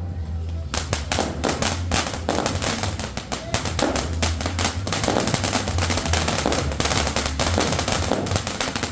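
Mayon Volcano firework fountain crackling: a dense, rapid run of sharp pops and crackles that starts about a second in and keeps going.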